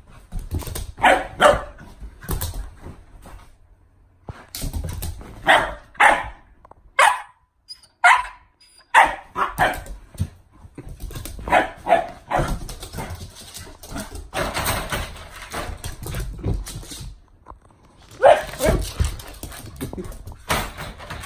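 Siberian husky puppy barking and yipping in short, repeated bursts while racing around during zoomies, with thuds of its paws on a wooden floor. The barking comes in clusters with brief lulls between.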